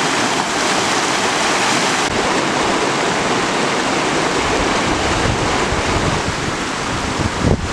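Kern River rapids rushing over rocks: a loud, steady rush of whitewater. From about two seconds in, low gusts of wind buffet the microphone under it.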